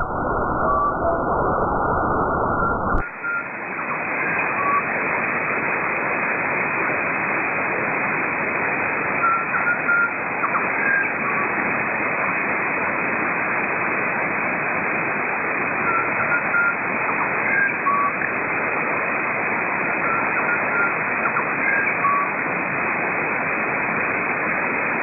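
Shortwave radio static from a software-defined receiver: a steady hiss with no clear station audible, and a few faint short beeps in the noise. About three seconds in, the sound changes abruptly to a brighter, wider hiss, as when the receiver is retuned or its filter is widened.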